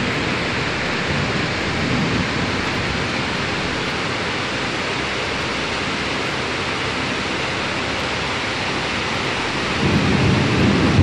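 Torrential rain pouring down in a steady, heavy hiss, with a deeper rumble swelling in near the end.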